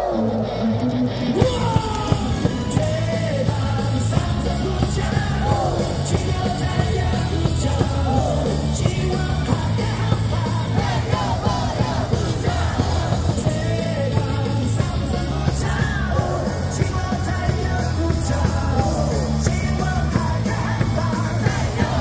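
A cheer song played loud over stadium loudspeakers, with a steady bass line, and a large crowd of fans singing and shouting along with it.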